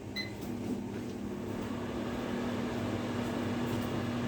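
Microwave oven gives a last short keypad beep as it is started, then runs with a steady hum.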